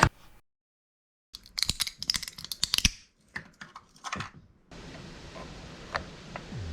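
A rapid run of sharp clicks and scrapes from hard plastic parts being handled and fitted, followed by a faint steady room hiss with two small clicks near the end.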